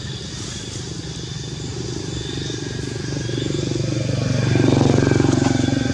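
A motor vehicle engine, likely a motorbike, running steadily and growing louder until about five seconds in, as it comes close by.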